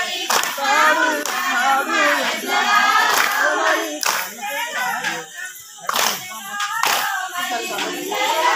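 A group of voices singing together with sharp hand claps struck at uneven intervals, as for a circle dance; the singing thins out briefly a little past halfway.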